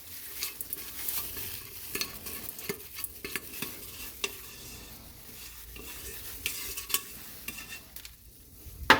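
Wet scraping and stirring as oily, spice-coated potato pieces and their olive-oil sauce are scraped out of a container onto baking paper, with many small clicks and a sharper knock near the end.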